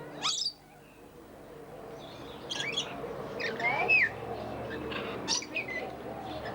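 Aviary birds calling: a handful of short, sharp, high-pitched calls with sliding pitch, the loudest near the start and about four seconds in, over lower cooing-like calls.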